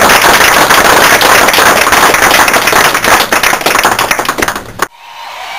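Applause from a small group of people clapping by hand, a dense fast patter of claps that cuts off suddenly near the end.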